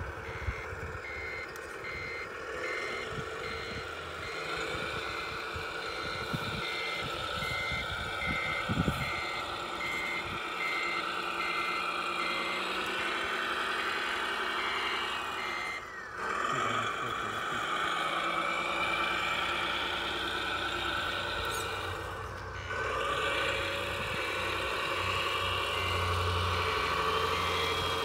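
Scale RC truck's reversing beeper sounding about twice a second over a steady engine-like running sound. The beeping stops a little past the middle and starts again a few seconds later.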